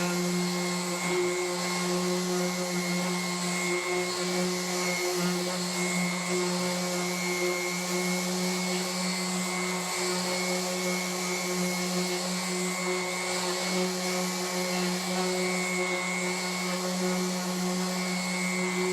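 TACKLIFE random orbit sander running at a steady speed while sanding a walnut cutting board with a 180-grit disc: a constant motor hum over an even hiss of abrasive on wood.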